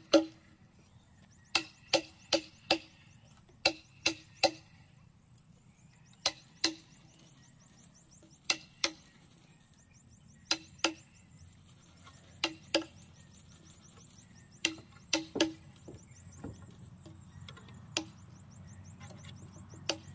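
A tool striking wood in quick groups of two to four sharp knocks, with pauses of a second or more between groups, each knock with a short low ring: timber being hammered or chopped during work on a house frame. A faint high insect trill runs underneath.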